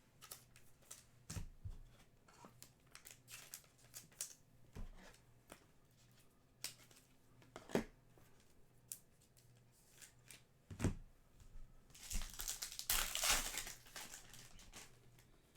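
Trading cards being handled, with scattered soft clicks and taps as cards are flicked through and set down, then a card pack's wrapper crinkling and tearing for about three seconds near the end.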